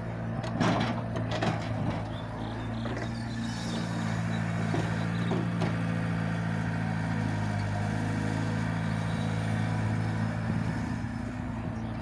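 Diesel engine of a Cat E70B tracked excavator running steadily under digging and swinging load, with a farm tractor's engine running alongside. About half a second in, clods of earth clatter into the tractor's trailer as the bucket is emptied.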